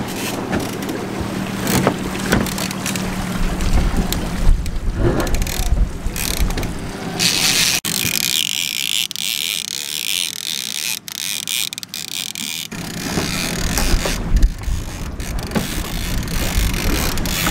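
Spinning reel cranked with rapid ratchet-like clicking as a hooked paddlefish is reeled in to the boat, over a steady outboard motor hum and wind on the microphone. For a few seconds in the middle the hum drops away, leaving only a hiss.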